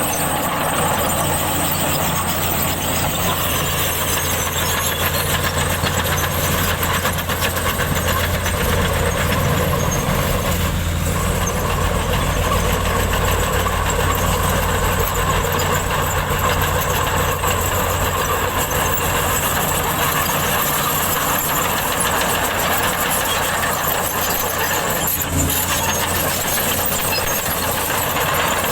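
Komatsu bulldozer's diesel engine running steadily under a dense metallic noise with a high squeal in it.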